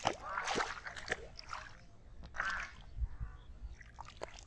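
Shallow muddy water splashing and sloshing as feet wade through it, in irregular bursts that are busiest in the first second and again about halfway through.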